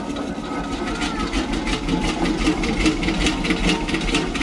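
Machinery running with a steady, quick, even chugging beat.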